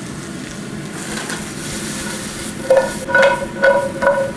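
Yellow squash and zucchini sizzling in a hot skillet, a steady frying hiss. From a little past halfway there is a run of rhythmic ringing clinks, about two to three a second, as the sauté is stirred and tossed.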